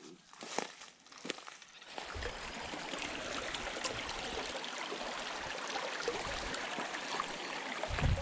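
A few footsteps, then from about two seconds in a steady rush of flowing creek water, with a low thump near the end.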